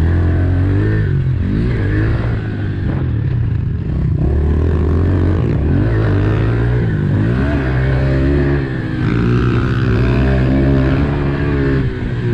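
Dirt bike engine running hard, its pitch rising and falling again and again as the throttle is opened and shut while riding.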